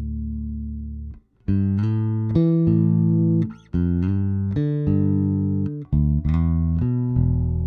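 Fender Jazz bass played through the clean channel of an EBS MicroBass3 preamp: a held note rings out and stops about a second in, then a phrase of about eight plucked notes moving up and down in pitch, ending on a sustained note.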